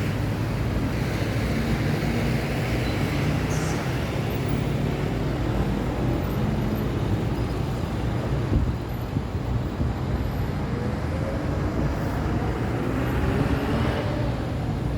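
Busy road traffic: passing vehicles' engines and tyre noise over a low, steady engine drone, with a single knock a little past the middle. Near the end a passing vehicle's engine rises in pitch.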